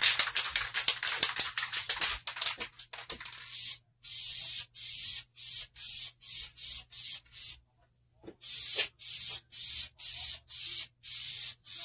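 Aerosol can of vinyl and fabric spray paint hissing in short bursts as a coat goes onto a vinyl car seat. The bursts come in a rapid run for the first few seconds, then at about two a second, with a brief pause a little before the last third.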